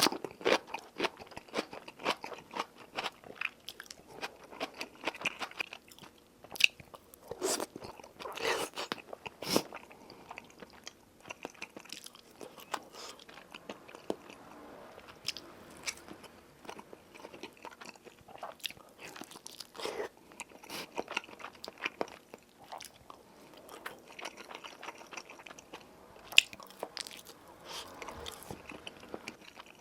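Close-miked eating of a meal of Spam, egg, kimchi and hamburg steak: chewing and biting with frequent crisp crunches. The bites are busiest in the first ten seconds and thin out for a while before picking up again.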